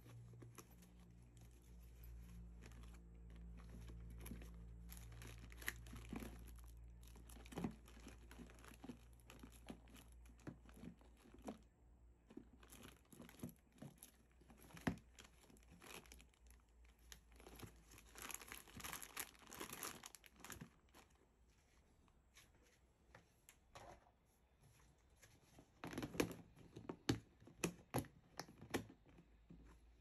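Close-up handling noises: crinkling and tearing, with scattered light knocks and clicks, busiest near the end. A low steady hum underlies the first several seconds.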